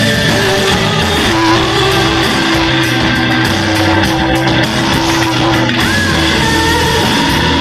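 A live band playing loud, guitar-led music. A long held note sits over the band for about five seconds in the middle.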